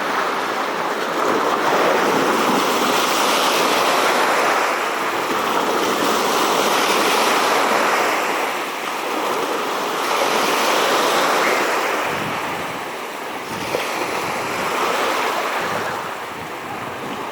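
Sea water rushing and surging, with wind buffeting the microphone. The noise is loud and steady, easing a little at times.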